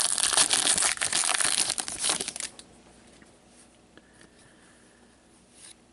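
Trading card pack wrapper crinkling and tearing as it is ripped open and crumpled, for about the first two and a half seconds, then a few faint ticks of card handling.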